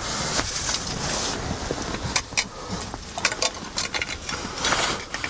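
Rustling handling noise with several sharp clicks, from an ice angler working a short winter rod and line over the hole while playing a hooked fish.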